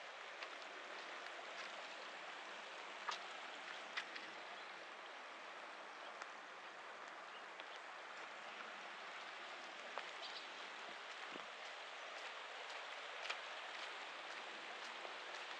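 Rain falling steadily, a soft even hiss dotted with sharp ticks of single drops striking nearby surfaces. A few ticks stand out louder, around three and four seconds in and again near the end.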